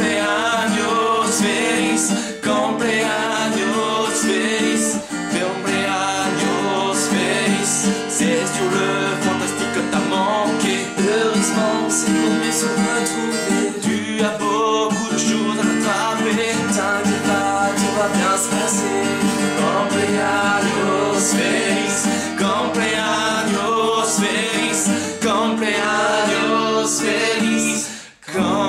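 Acoustic guitar strummed with a capo, accompanying two men singing together, with a brief break just before the end.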